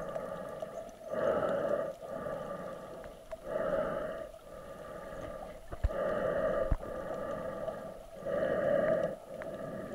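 A breath-like sound swelling and fading about every two and a half seconds, with two short low thumps near the middle.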